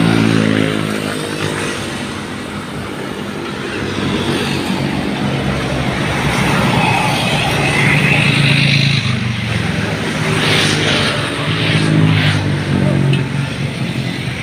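Motor vehicle engines running in road traffic, their pitch rising and falling as they speed up and slow down.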